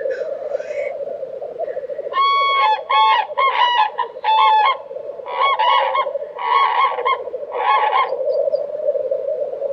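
Common cranes trumpeting: a run of loud, clear, honking calls in close clusters from about two seconds in until near the end. Under them runs the continuous bubbling chorus of lekking black grouse cocks, and a black grouse hiss rises and falls right at the start.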